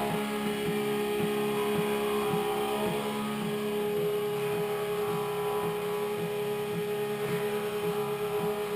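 Stepper motors of a homemade four-axis CNC hot-wire foam cutter running through a cut, a steady whine of several held tones with a faint regular pulse, about three a second, underneath.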